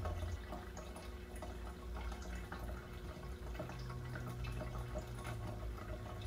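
Faint dripping and trickling water over a low, steady hum.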